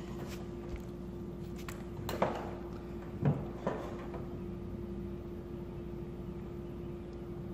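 Sheet-metal housing of an electric baseboard heater knocking and clunking against the wall as it is handled and positioned: a light knock, then a louder one about two seconds in and two more around three and a half seconds in, over a steady low hum.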